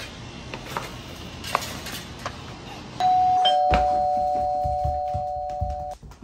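Two-tone ding-dong doorbell chime about three seconds in: a higher note, then a lower one about half a second later. Both notes hold and fade slowly for nearly three seconds before cutting off. A thump and a few dull thuds sound under the chime.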